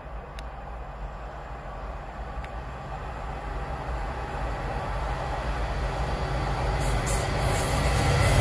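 Class 66 diesel locomotive approaching at the head of a container freight train, the low drone of its two-stroke V12 engine growing steadily louder. A rushing wheel-and-rail noise joins in the last second or two as it draws level.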